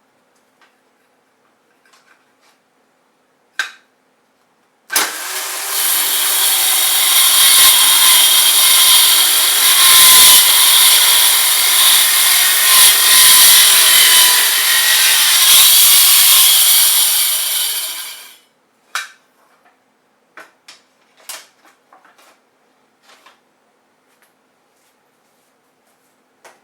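Black & Decker Matrix circular saw attachment starting up, cutting lengthwise along the grain of 3/4-inch plywood for about thirteen seconds, then spinning down. A sharp click comes before it starts, and a few light knocks follow once it stops.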